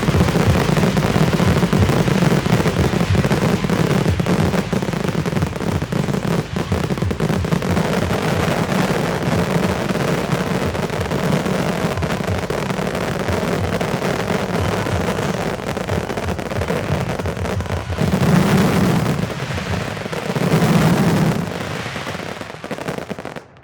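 Fireworks going off in a dense, rapid barrage of reports, with two louder swells of booms late on, then stopping abruptly.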